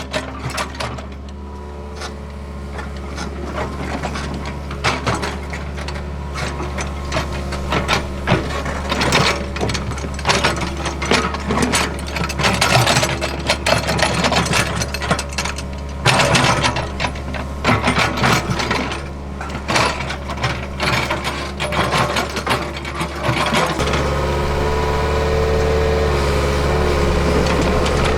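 Hitachi ZAXIS75UR excavator's diesel engine running steadily while the bucket scrapes and knocks through soil, levelling the ground with irregular clatter. About 24 s in, the engine and hydraulics become louder and steadier, as under heavier load.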